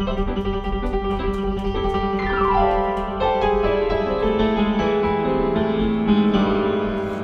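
Keyboard played in a piano sound, a rock-and-roll solo over a looped backing, with a downward glide of notes about two and a half seconds in.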